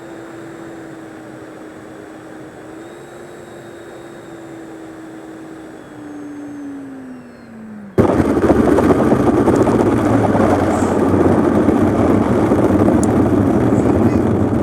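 Electric ducted-fan model jet (Arrows Marlin 64mm EDF) with a steady whine that drops in pitch near the end of the first eight seconds as the throttle comes back. It then switches abruptly to a much louder rushing noise with a low hum.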